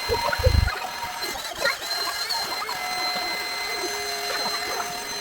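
Electric air-mattress pump running steadily as it inflates an air mattress. There are a couple of low thumps about half a second in.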